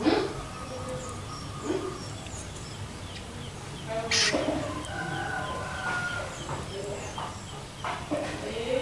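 Young long-tailed shrike (cendet) giving its juvenile 'loloan' calls: a string of short squeaky chirps and thin whistles, with sharper harsh notes right at the start and about four seconds in.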